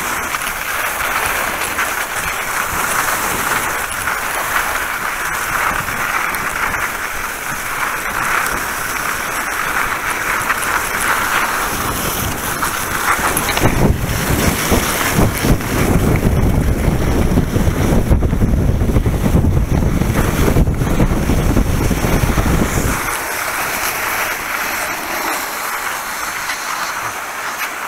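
Alpine skis sliding and scraping over wet snow with a steady hiss, while wind buffets the body-worn camera's microphone at speed. The low wind rumble builds about halfway through, holds for some ten seconds, then eases as the skier slows.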